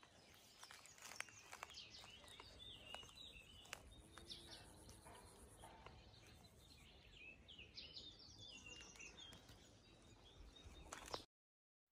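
Faint outdoor ambience with small birds chirping in short runs, one cluster about a third of the way in and another about two thirds in. It cuts off abruptly near the end.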